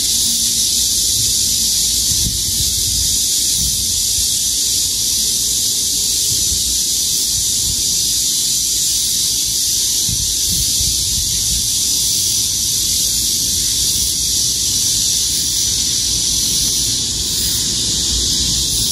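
A dense chorus of cicadas and grass insects: a constant high buzzing hiss that does not let up, with a low rumble underneath.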